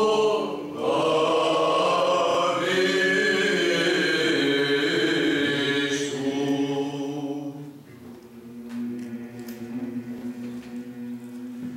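Byzantine chant: male voices sing a slow, ornamented melody over a held drone note (the ison). A little past halfway through, the singing falls quieter and the low drone note holds steady beneath it.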